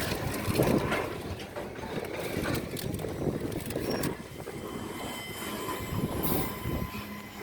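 A train rolling past, its wheels running steadily over the rails.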